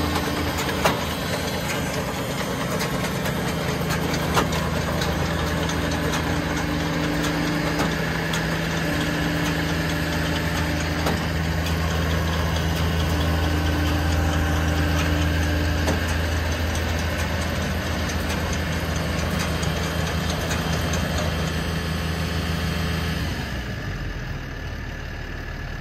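Tractor diesel engine idling with a steady low hum; the hum stops near the end.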